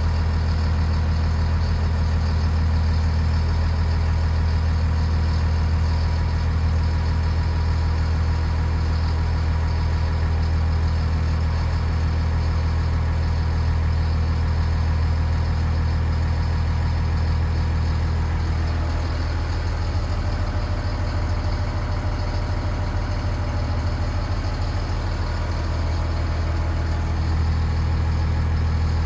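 Cat wheel loader's diesel engine idling steadily, heard from inside the cab, as the machine warms up with its fluids still cold.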